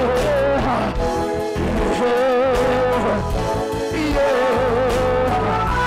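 Live gospel worship music: a worship team sings long, wavering held notes with vibrato over a live band.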